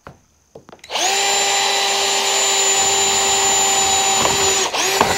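Power drill spinning up and running at a steady high speed for nearly four seconds, drilling into a corrugated metal wall panel to secure it for riveting. It stops, then runs again briefly near the end.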